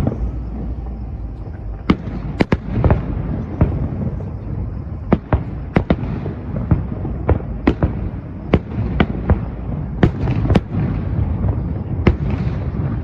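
Aerial fireworks bursting, sharp bangs coming irregularly about one or two a second over a constant low rumble of echoing reports.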